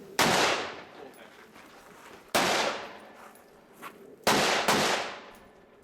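Four rifle shots fired at a steady pace: one about a second in, another just after two seconds, then two in quick succession after four seconds, each trailing off in a ringing echo.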